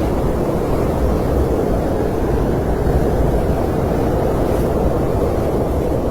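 Snowstorm wind ambience: a steady, deep rushing noise with no gusts or breaks.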